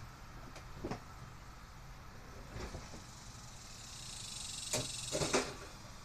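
Heavy wooden workbench on casters being pushed across the garage floor: a couple of single knocks, then a rising scraping rumble with several loud clunks near the end.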